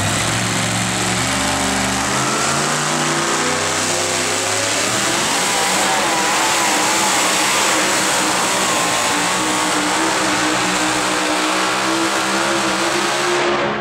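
Supercharged engine of a 2WD super modified pulling truck at full throttle, loud throughout as it drags a weight sled down the track.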